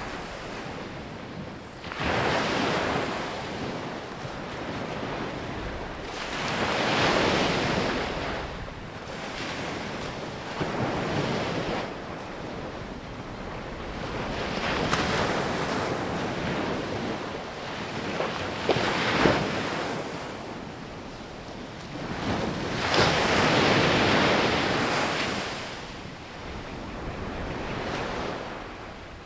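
Ocean waves breaking on a beach: the surf rushes up loudly and fades away again, about every four to five seconds.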